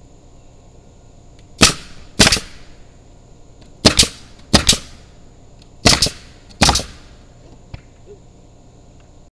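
Pneumatic nail gun driving nails into wooden fence slats: three pairs of sharp shots, the two in each pair about half a second apart, with a faint click near the end.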